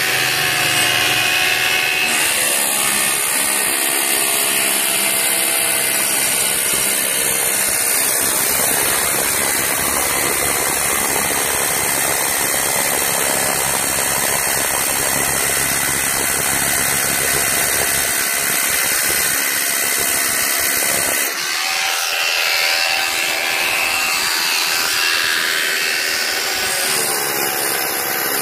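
Corded hammer drill boring into a stone wall panel, running steadily with a dip in level about 21 seconds in.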